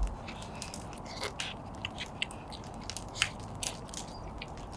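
Someone eating close to the microphone: irregular crunchy bites and chewing clicks.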